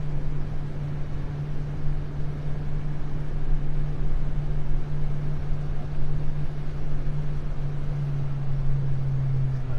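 Tour boat's motor running steadily underway, a low, even drone.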